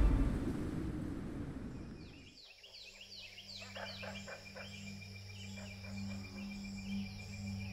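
Background music fades out. A quiet outdoor nature ambience follows, with repeated high chirps falling in pitch, two to three a second, over a faint steady high trill.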